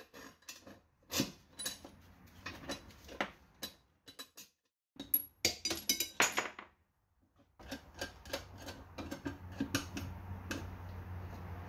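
Irregular metal clinks and rattles of a bolt and washer being fitted by hand to the end of a threaded rod through a motorcycle wheel hub, with a denser cluster of clinks about halfway through.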